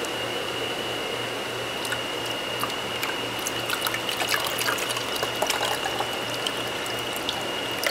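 Water pouring from a plastic milk jug into a transparent tank, a steady trickle with many small splashes as it fills.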